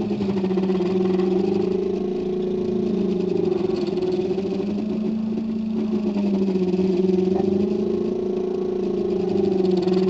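3D printer's stepper motors humming as the print head traces its path while printing pewter, two steady tones that drift slowly up and down in pitch.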